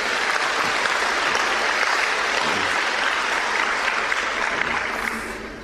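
A large audience applauding, a dense steady clapping that fades out near the end.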